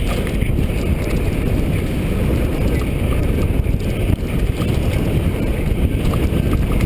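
Mountain bike descending a dirt trail: a steady, loud rumble of wind buffeting the microphone mixed with tyres and the rattling bike running over the ground.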